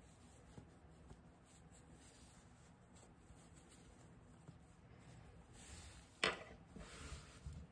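Faint rustling of acrylic yarn and hands as a stitch is worked with a crochet hook. About six seconds in there is a single sharp knock, followed by rustling as the crocheted panel is handled and stretched out.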